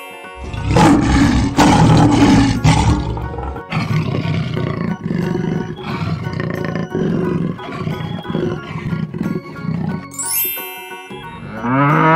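Big-cat roar sound effects, loudest in the first three seconds, over upbeat children's background music. Near the end a cow moos.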